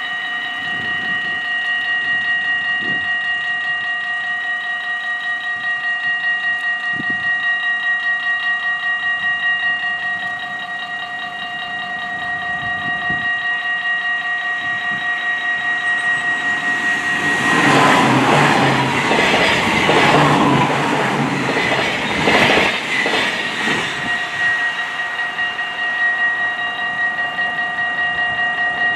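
Dutch level-crossing warning bell ringing steadily while the barriers are down. From about 17 seconds in, a train passes for some seven seconds, the rush and clatter of its wheels on the rails drowning the bell, which then rings on alone.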